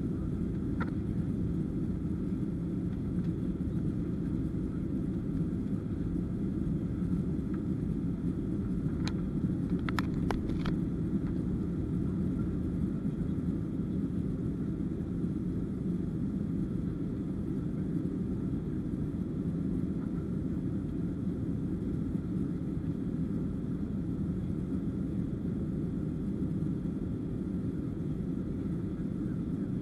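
Steady low drone of a jet airliner's engines and airflow heard inside the passenger cabin during the climb after takeoff, with a few light clicks about ten seconds in.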